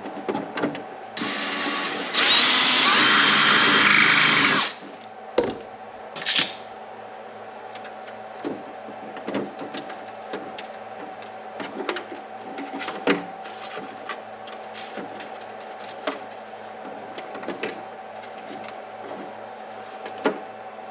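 Power drill running for about three and a half seconds, boring the hole in the RC truck's body that the light bar wire passes through, followed by scattered light clicks and taps of small parts being handled.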